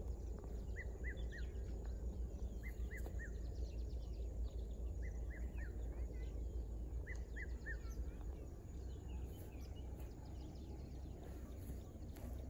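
A bird calling in phrases of three short falling notes, a phrase about every two seconds for the first eight seconds, with faint chirps of other birds, over a steady low rumble.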